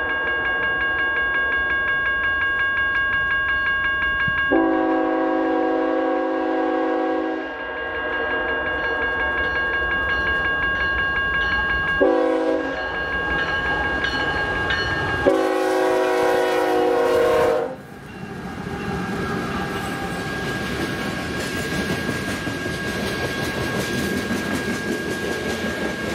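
A GE Evolution-series locomotive's horn sounds the crossing pattern as a BNSF grain train approaches: long blasts running into a loud long one about 4 seconds in, a short one about 12 seconds in, and a final long one that ends near 18 seconds. A railroad crossing bell rings with a rapid steady pulse throughout. After the horn stops, the locomotives pass and the loaded hopper cars roll by with steady wheel-on-rail noise and clickety-clack.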